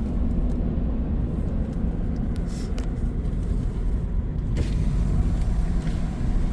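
Steady road and engine rumble inside a moving RV at cruising speed, with a few faint brief rattles.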